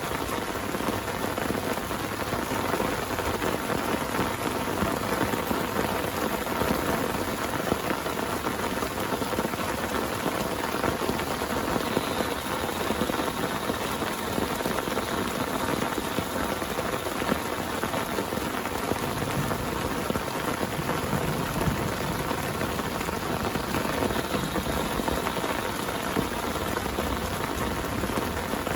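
Heavy rain falling steadily on a tent, with many close drops striking in quick, irregular ticks.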